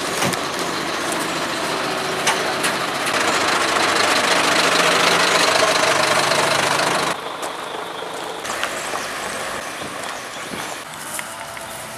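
Motor vehicle engine running under a loud, noisy rush that stops abruptly about seven seconds in, giving way to quieter outdoor traffic noise.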